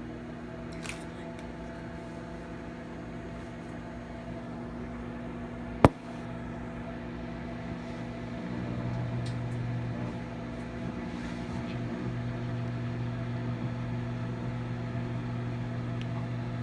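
Microwave oven running with a steady hum while heating fruit snacks, with one sharp pop about six seconds in, a fruit snack bursting.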